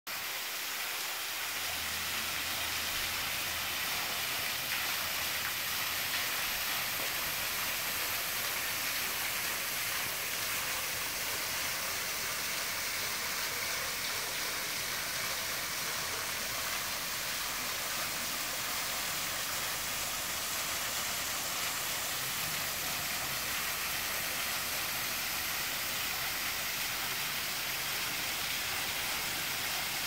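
Small, thin waterfall splashing steadily into a shallow rock pool: an even, unbroken hiss of falling water.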